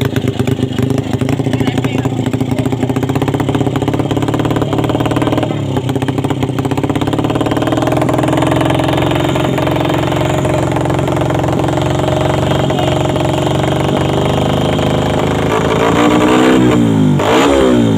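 Honda Supra X 110 underbone motorcycle's single-cylinder four-stroke engine running during a tune-up, its steady idle slowly climbing in speed. In the last two seconds the throttle is blipped, with several quick revs rising and falling.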